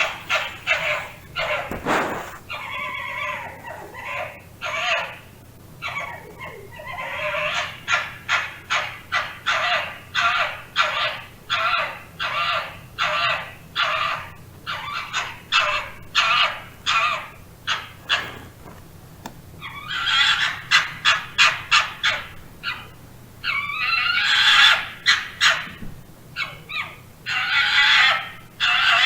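Fox calling: short calls repeated about two a second, in several bouts with brief pauses between them.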